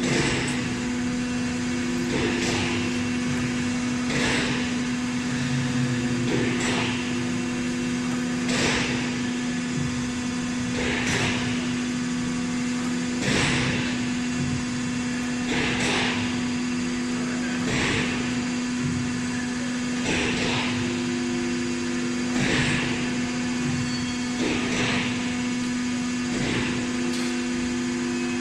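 Hydraulic forging manipulator running: a steady hum from its hydraulic power unit, with a short hiss about every two seconds as it works its tong.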